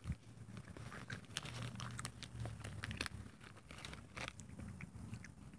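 A toddler chewing a soft sour gummy candy with her fingers in her mouth: many small, scattered wet mouth clicks and smacks, with a sharp knock right at the start.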